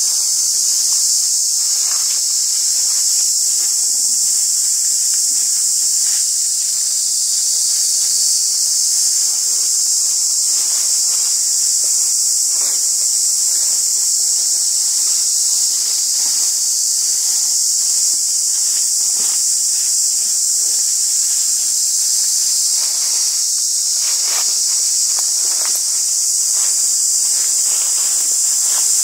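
A steady chorus of insects: an even, high-pitched buzz that stays at one level throughout, with faint scattered clicks and rustles beneath it.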